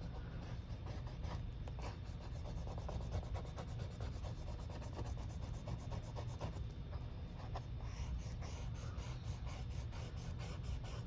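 Plastic burnishing paddle rubbing back and forth over the plastic backing sheet of a rub-on transfer, a quiet scratchy scraping in many short strokes, pressing the design onto the paper.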